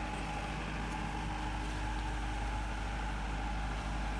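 Case compact track loader's diesel engine running steadily, without revving.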